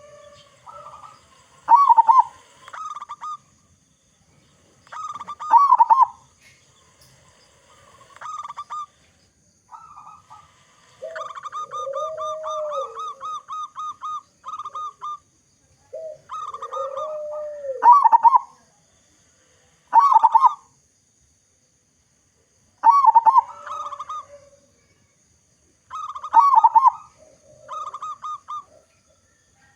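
Local perkutut (zebra dove) cooing in its repeated song: short clusters of quick staccato coos every few seconds, with one long fast run of notes in the middle. Twice, near the middle, a lower call rises and falls.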